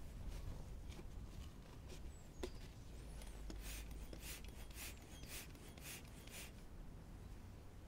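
Stand-up hand pump inflating an inflatable paddleboard: a quick run of short airy hisses, about two a second, from about three and a half seconds in to six and a half, one per stroke of the pump.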